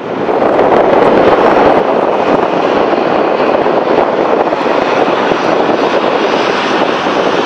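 Steady, loud aircraft engine noise: a Bombardier CRJ-900 regional jet flaring to land, with a propeller airliner taxiing close by.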